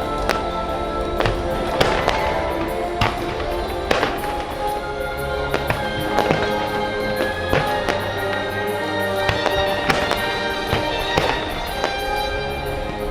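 Fireworks shells bursting in irregular bangs, about one a second, over the show's loud musical score.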